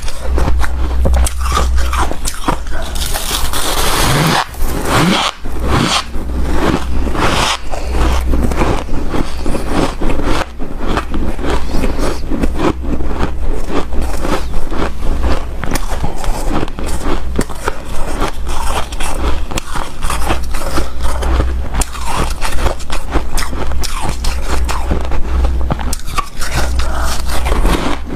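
Close-miked biting and chewing of hard, snow-like refrozen ice powder: dense, irregular crunching and crackling throughout, over a steady low hum.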